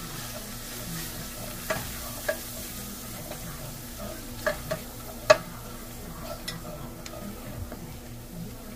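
Wooden spoon stirring and scraping flour and diced vegetables through hot oil in a stainless steel pan, browning the flour for a roux, over a low sizzle. A handful of sharp knocks of the spoon against the pan, the loudest a little past five seconds in.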